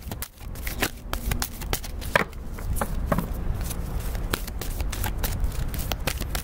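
A deck of tarot cards being shuffled by hand: a quick, irregular patter of soft card clicks and slaps.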